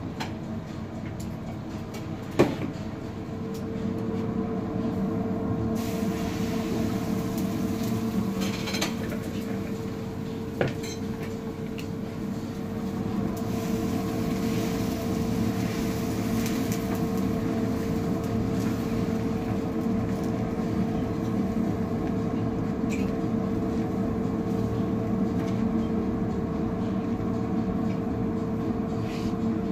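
Steady rushing noise with a constant low hum from a gas burner firing under a large griddle while a thin pancake cooks, broken by a sharp knock about two seconds in and a lighter one about ten seconds in.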